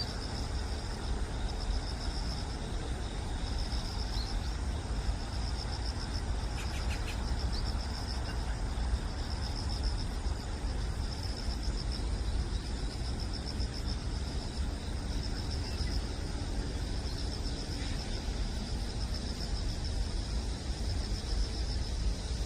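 Insects chirring continuously in a high, rapidly pulsing trill, over a steady low rumble.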